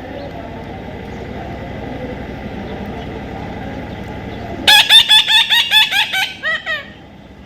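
A parrot calling in a rapid run of loud, shrill notes, about five a second, for about two seconds near the end, after a stretch of low background murmur.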